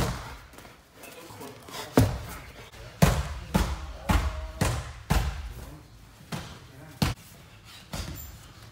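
Gloved punches landing on a strike pad and on a heavy bag lying on the mat in a ground-and-pound drill. There are about ten sharp thuds, irregularly spaced, bunched closer together in the middle.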